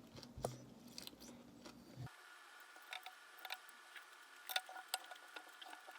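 Faint, scattered light clicks and taps; about two seconds in the background hum drops away and a faint steady tone comes in under the clicks.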